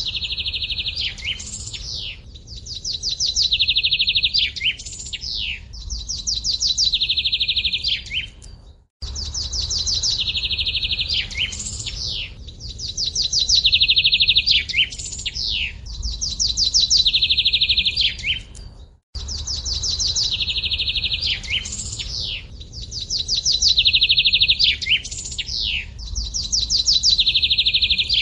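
Looped birdsong recording: rapid high trills, each followed by quick swooping chirps, repeating every couple of seconds. The same ten-second stretch restarts twice, with a brief cut each time.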